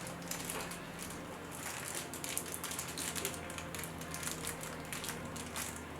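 A plastic Shopkins blind bag crinkling and rustling as it is torn open by hand, in a run of small irregular crackles.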